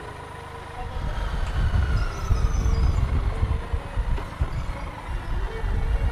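Motorcycle riding in town: a low, uneven rumble of engine and road noise that grows louder about a second in.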